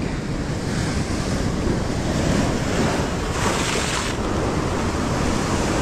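Ocean surf breaking and washing over rocky ledges, with wind buffeting the microphone; a louder rush of white water comes about three and a half seconds in.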